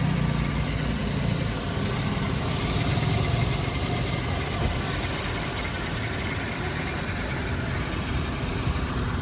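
Continuous high-pitched squeaking with a fast, even flutter that holds steady throughout.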